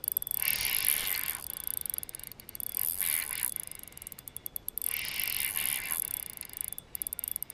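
Spinning reel being cranked in several spells with short pauses, its gears whirring, as a hooked bass is reeled in against a bent rod.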